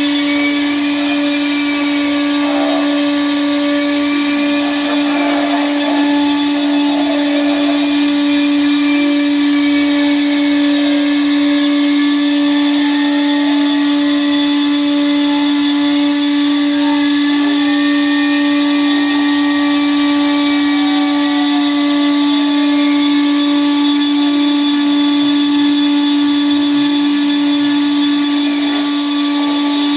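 CNC router spindle running with a steady whine while its bit cuts a groove into MDF. Fainter tones rise and fall underneath.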